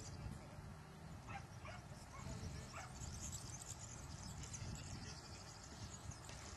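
Rottweiler giving a few short, high whines, about one to three seconds in.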